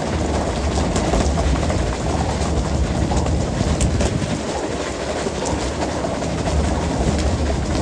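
A fishing boat's engine running with a steady low rumble under a continuous hiss of sea water rushing and splashing along the hull, with scattered light knocks.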